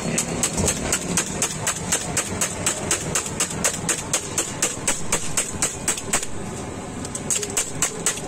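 Metal tongs whisking eggs in a steel bowl, clicking against the bowl about five times a second, with a short pause about six seconds in, over a steady low rumble.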